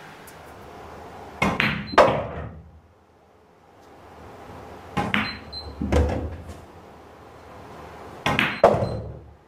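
Pool balls clacking: three pairs of sharp knocks, each a cue hitting the cue ball followed by a ball-on-ball clack, each with a short tail, over a low hall hum.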